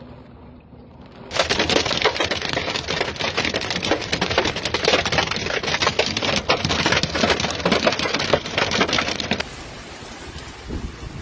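Heavy hail pelting the ground and a pickup truck, a dense clatter of hard rapid impacts that starts abruptly about a second in. Near the end it cuts to a quieter, steady rain hiss.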